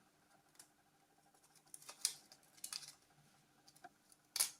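A few faint clicks and light scrapes of small plastic phone parts being handled as the main board is lifted out of a Nokia 6210s Navigator, with the sharpest click near the end.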